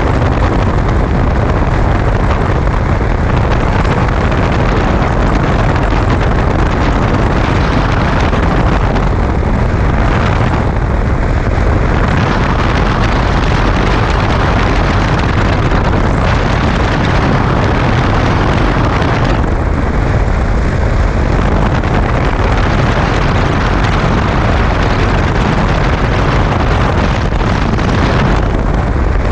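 Steady rush of wind over a camera microphone mounted on a Honda Africa Twin motorcycle riding at road speed, with engine and road noise mixed into it.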